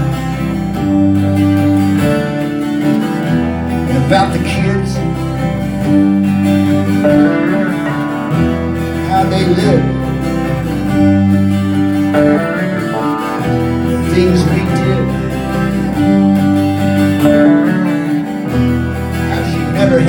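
Live rock band playing: electric guitar from a Les Paul-style guitar over bass and drums, with chords changing every second or two in a repeating pattern.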